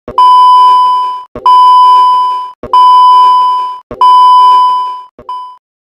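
Electronic beep tone sounding four times, each beep steady at one pitch and lasting about a second, then a short fifth beep near the end.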